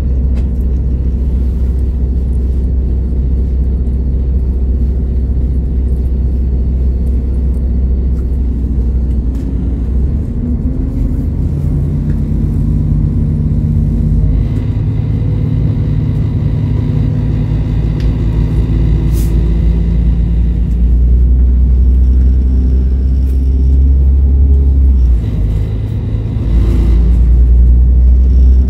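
Class 172 Turbostar diesel multiple unit heard from inside the carriage, idling at a station and then pulling away. About ten seconds in the underfloor diesel engine revs up and the ZF transmission whines as the train gathers speed; the sound dips briefly about 25 seconds in, as at a gear change, then comes back louder.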